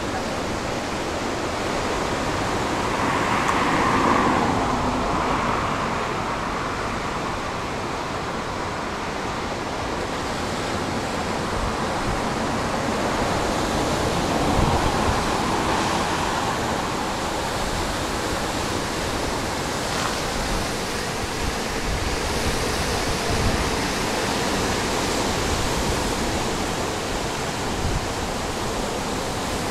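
Ocean surf breaking and washing onto a beach: a steady rush that swells louder about four seconds in and again around fifteen seconds in.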